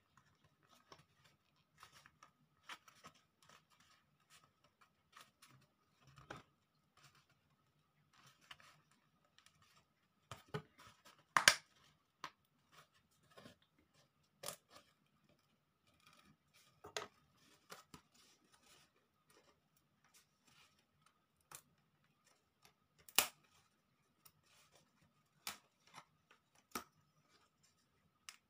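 Thin wooden craft pieces being worked free and trimmed by hand from a pre-cut wooden sheet: scattered, irregular sharp clicks and snaps. The loudest come about 11 seconds and 23 seconds in.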